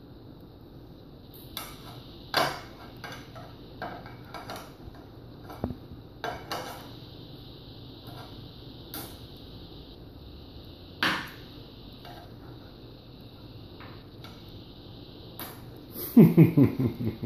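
Scattered light clinks and knocks of dishware during a meal of rice, about a dozen separate taps spread out with gaps between them. Near the end a loud rapid pulsing sound starts.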